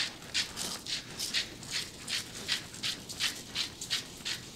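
Hand-twisted salt grinder crunching out salt in short rasping strokes, about three a second.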